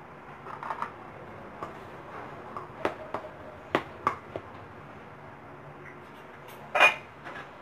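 Scattered light taps and clicks of a spoon against a stainless steel mixing bowl while siomai wrappers are filled, then one louder metal clank near the end as the lid of a stainless steel steamer pot is handled.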